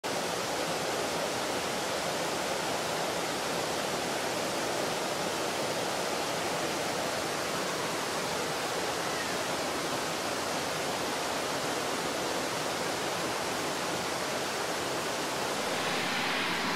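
Steady rushing of creek water spilling over a low weir. Near the end the rush turns brighter and hissier.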